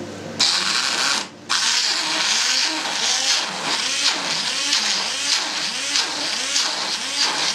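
Hand-held immersion blender running in a steel pot of blackcurrants and sugar. It switches on about half a second in, cuts out briefly around a second later, then runs on with its pitch wavering up and down.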